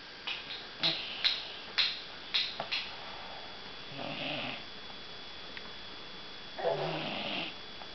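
Snoring: two slow, rasping snores about four and six and a half seconds in, each well under a second long. The first three seconds hold about six short, sharp clicks.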